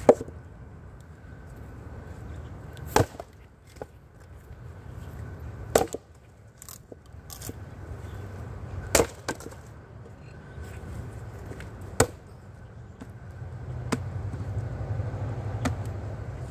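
An axe striking and splitting firewood rounds on a chopping block: five sharp blows about three seconds apart, several followed by a smaller knock as the wood splits or falls.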